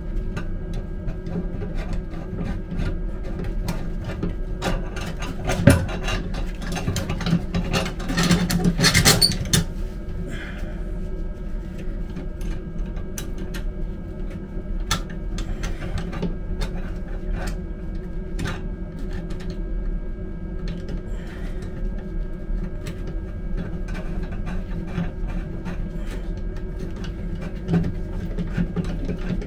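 Small metal clicks and scrapes of hand work on a railway car toilet's vacuum breaker, seating a new diaphragm on its studs and starting the nuts, over a steady low hum. A sharp knock comes about six seconds in, and a louder rough rustling around eight to nine seconds.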